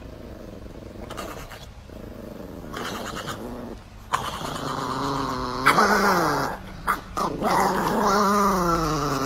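Chihuahua growling: a long, wavering, pitched snarl that gets much louder about four seconds in and breaks off briefly before going on.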